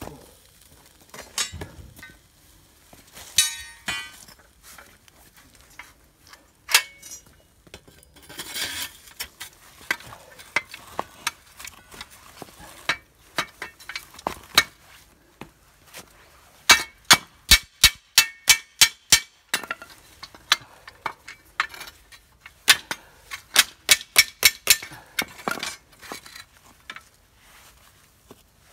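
A metal tool tapping and clinking against the furnace's steel tube. There are scattered single clinks, then two quick runs of sharp metallic strikes at about four a second, each ringing briefly.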